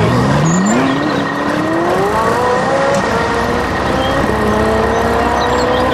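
Vehicle engine accelerating, its pitch climbing and dropping back twice as it shifts up through the gears.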